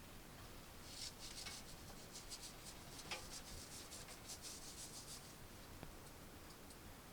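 Faint quick rubbing strokes, with two light knocks about one and a half and three seconds in.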